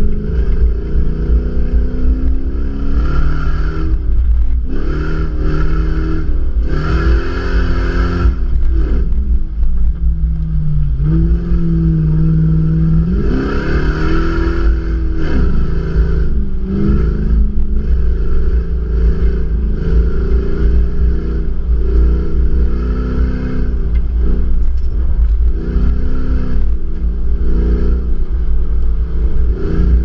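Toyota Land Cruiser 200's 4.6-litre V8 (1UR-FE) under load driving on sand, its note repeatedly rising as it revs and dropping back, with the hardest revs about a quarter and about halfway through. A heavy low rumble of wind on the outside-mounted camera runs under the engine.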